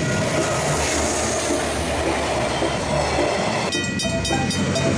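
Train rumbling through a level crossing with faint crossing-bell tones. About three and a half seconds in, the sound switches abruptly to Griswold mechanical level-crossing bells striking in a quick, even rhythm over the low rumble of an approaching diesel freight train.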